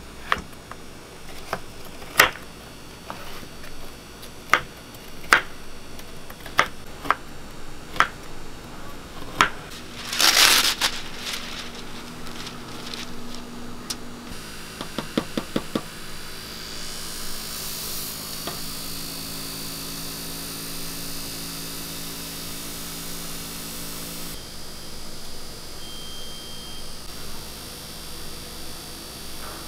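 A kitchen knife chopping fruit on a wooden cutting board: about ten sharp, irregular chops over the first ten seconds. After a short hiss, a steady electric motor hum follows for several seconds.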